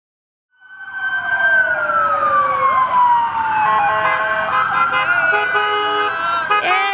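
Police SUV siren starting about half a second in, its wail falling in pitch, joined after a few seconds by several car horns honking at different pitches.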